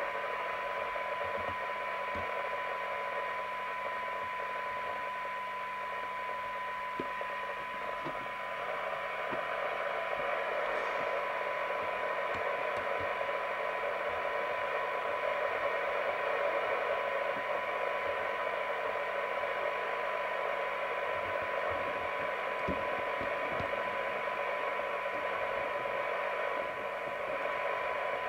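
Rotel RVC240 FM CB radio's speaker playing a steady test tone from a signal generator, half buried in receiver hiss: a weak test signal near the limit of sensitivity while the receive coils are re-peaked. The hiss grows a little stronger around eight to ten seconds in, with a few faint ticks from the tuning tool.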